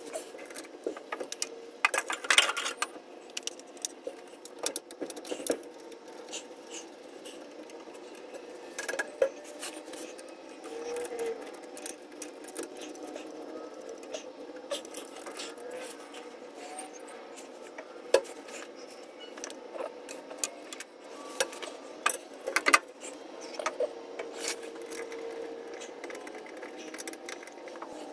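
Hand tools and metal parts being handled while working on a car's clutch and drivetrain: scattered clicks, clinks and knocks with some rubbing and scraping, over a faint steady hum.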